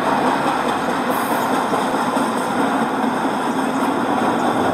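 Model train running past on layout track, making a steady mix of wheel-on-rail noise and a constant low hum as the locomotive and loaded coal hopper cars roll by.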